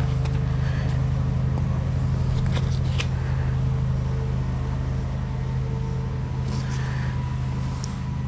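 Steady low mechanical hum with a fast, even pulse, like an idling engine. A few brief rustles and clicks come from a fabric sling backpack being handled, once about three seconds in and a few times near the end.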